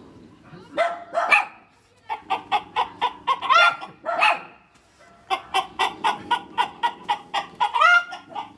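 Hen cackling in two long runs of short, quick clucks, about three or four a second, some ending in a higher drawn-out note: the egg song of a hen around laying.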